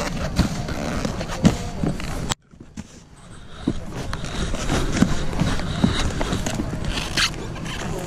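Snowboard scraping and sliding over packed, tracked-up snow, with many knocks and rattles. The sound cuts out suddenly a little over two seconds in and builds back up over the next second or two.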